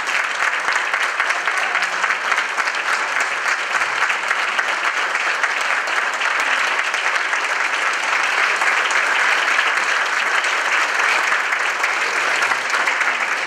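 A large audience applauding, many hands clapping at once in a steady, dense ovation.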